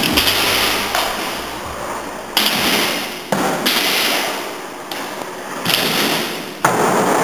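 Kick scooter riding on a concrete skatepark floor: about six sudden thuds, each followed by a rush of rolling noise that fades away.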